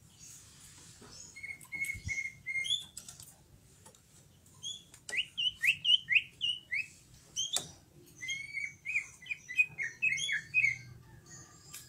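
Green leafbird (cucak ijo) singing in bursts of short whistled chirps and rising slurred notes, ending in a quick chattering run, with one sharp click about two-thirds of the way through.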